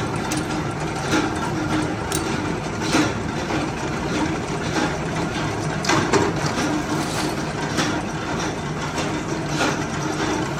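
Stamped steel cup pieces clanking and clattering against each other as they are handled and packed into a sack, over the steady hum of running workshop machinery.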